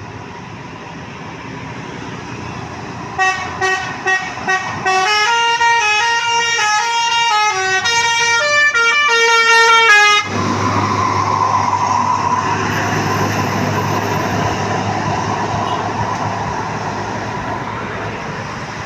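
Tour bus's telolet basuri musical air horn playing a tune: a few short toots about three seconds in, then a quick run of stepped notes for about five seconds that cuts off suddenly. The noise of the passing bus follows and slowly fades.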